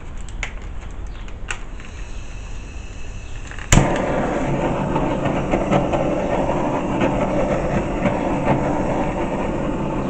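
A handheld butane torch clicks several times, lights with a sharp click a little under four seconds in, and then hisses steadily as its flame is played over the wet poured acrylic paint.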